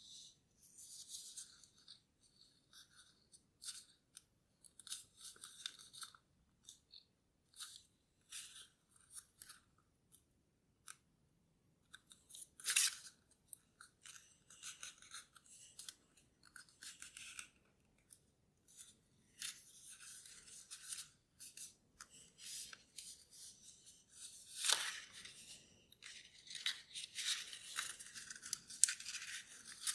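A sheet of origami paper being folded and creased by hand: irregular rustling and crinkling as the paper is pressed and shaped, with a couple of louder, crisper crinkles along the way.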